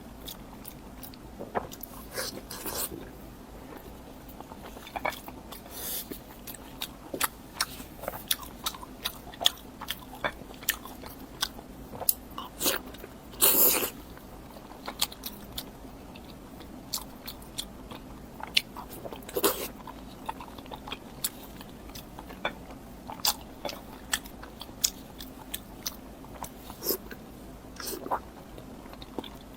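Close-miked eating: irregular crisp bites and crunches with chewing mouth sounds, the longest crunch about halfway through.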